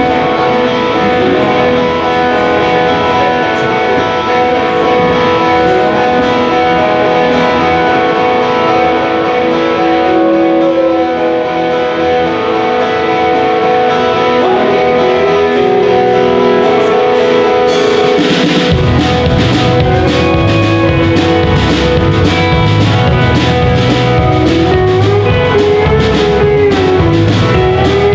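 Live rock band playing a song intro: electric guitars holding chords with bent lead notes over light cymbal taps, then the bass and full drum kit come in with a cymbal crash about eighteen seconds in.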